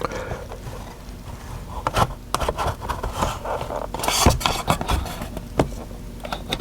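Parts of a car's touch-screen assembly being worked at by hand to free a stuck piece: rubbing and scraping with scattered sharp clicks and snaps, the piece not coming loose.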